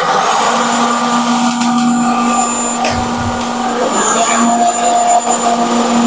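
Cold spark machines firing together, a loud steady rushing hiss that starts suddenly and holds.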